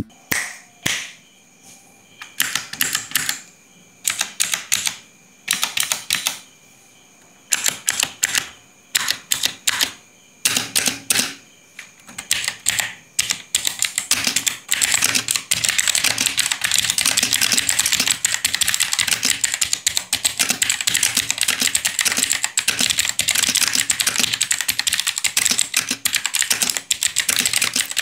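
Aula F3287 mechanical keyboard being typed on: short runs of keystrokes with brief pauses between them for about the first twelve seconds, then fast, continuous typing.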